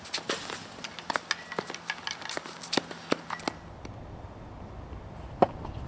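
Tennis play on a hard court: a run of irregular sharp taps and clicks from footsteps and ball contacts, then a change of background and a single loud crack of a racket striking a tennis ball a little after five seconds in.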